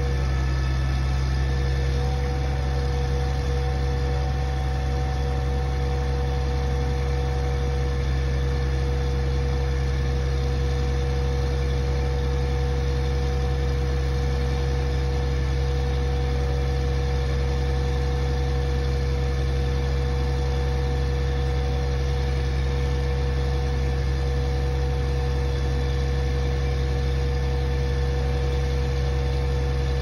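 Concrete boom pump truck's diesel engine running steadily with a deep, unchanging drone and a steady whine over it.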